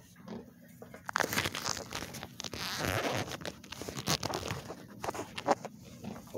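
Scratchy rasping and clicking of a plastic zip tie being handled and worked through the loop of a tire plug, thickest in the middle of the stretch.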